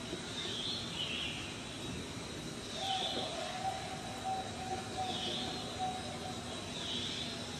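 Outdoor ambience with soft, short bird chirps every second or two over a steady hiss, and a thin steady high tone throughout. A fainter steady lower tone comes in about three seconds in.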